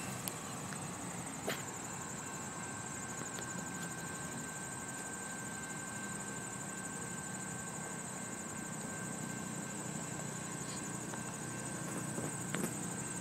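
Steady, high-pitched trilling of insects in tall grass and weeds, with a couple of faint clicks.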